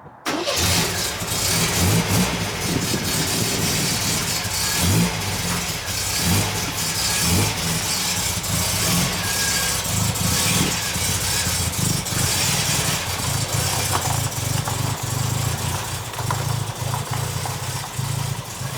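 1979 MGB Roadster's four-cylinder engine running, with a few brief blips of the throttle.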